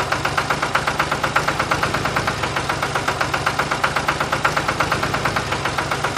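Tractor engine chugging steadily at idle, with a rapid, even beat of about eight pulses a second.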